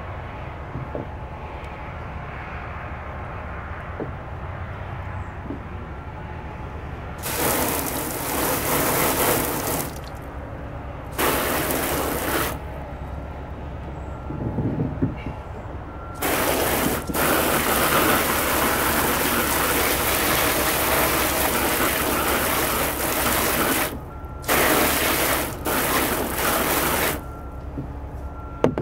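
Garden hose with a pistol-grip spray nozzle squeezed on and off, water spraying onto freshly dug potatoes in a plastic tub. It comes as a hiss in several bursts: two short ones before the middle, then one long spray of about eight seconds and two short ones near the end.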